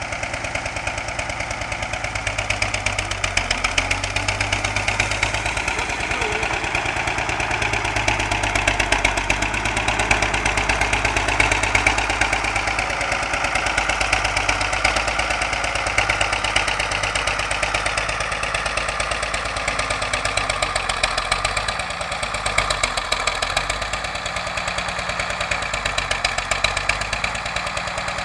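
County 954 four-wheel-drive tractor's diesel engine running as it drives across grass, a fast, steady chugging. Its note rises and falls a few times in the latter part as the revs change.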